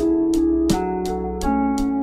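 Background music: sustained keyboard-like notes over a steady beat.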